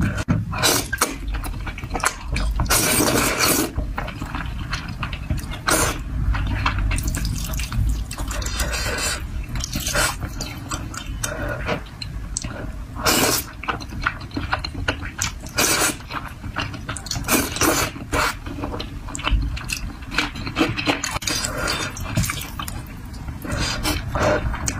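Close-miked wet eating sounds of thick saucy noodles: a steady run of short smacking clicks from chewing, broken by several longer slurps.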